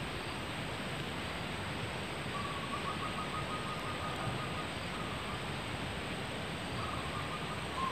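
Steady hiss of forest ambience with a distant bird calling: a thin, rapid trilled note about two seconds in that lasts about two seconds, then short calls near the end.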